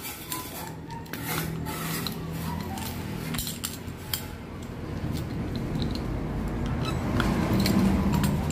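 Scattered clicks and small metallic clinks from a ratcheting PVC pipe cutter working on a PVC pipe, over a low hum in the background that swells near the end.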